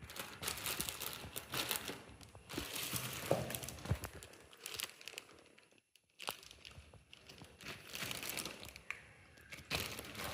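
Plastic packaging crinkling and rustling as it is handled and pulled off, in repeated bursts with a short pause about six seconds in.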